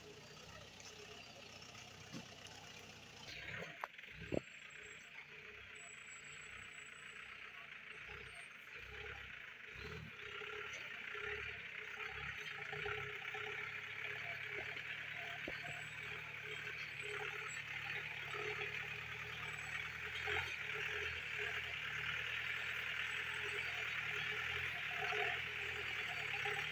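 Mahindra jeep engine running under load as the jeep climbs a rough dirt forest track, slowly getting louder as it comes closer. A couple of sharp knocks come about four seconds in.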